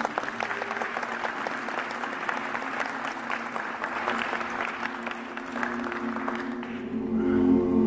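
Audience applauding with many hands clapping. Near the end, an a cappella vocal choir comes in on a held chord.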